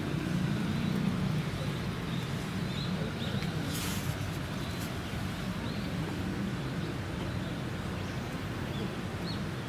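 Steady low background rumble, with a few faint high chirps and a single sharp click about four seconds in.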